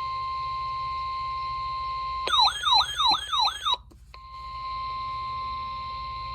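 NOAA Weather Radio 1050 Hz warning alarm tone, a steady single-pitched beep signalling a warning about to be read. About two seconds in it is cut into by a louder warbling siren tone that sweeps down over and over for about a second and a half. After a brief gap the steady tone resumes.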